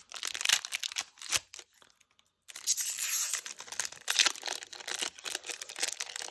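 Foil booster pack wrapper being torn open and crinkled by hand, crackling and rustling, with a brief gap about two seconds in and a longer tearing stretch just after it.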